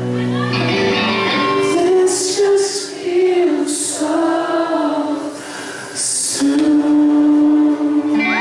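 Live singing: a male vocalist sings the closing lines of an acoustic ballad into a microphone, with a long steady held note near the end.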